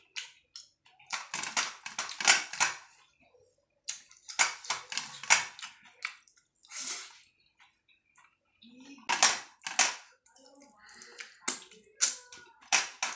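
Close, wet squishing of rice and curry being kneaded by hand on a steel plate, with chewing and lip-smacking. The sounds come in several bursts of a second or two, with short pauses between them.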